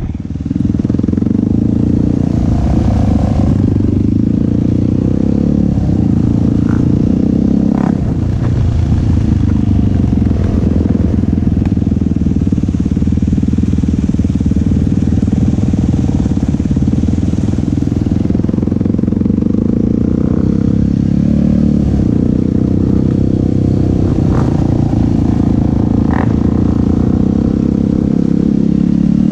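Yamaha YFZ450 sport quad's single-cylinder four-stroke engine running steadily under riding, with a few sharp knocks and clatters.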